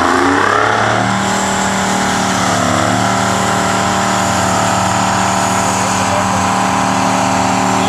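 Detroit Diesel 12V-71 two-stroke V-12 in a giant pulling tractor, revving up hard to full throttle in the first second, then held at high, steady revs under load as it drags the weight sled. The pitch sags briefly and recovers about two and a half seconds in.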